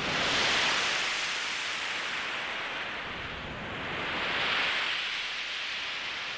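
Sea surf sound effect: two slow swells of washing wave noise, one about half a second in and another about four and a half seconds in.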